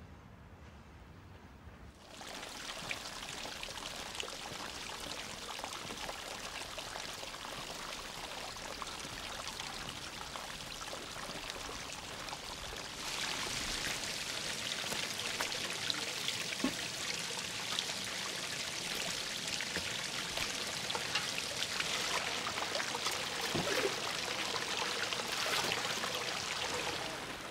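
Water gushing and splashing in a steady rush, starting about two seconds in and getting louder about halfway through.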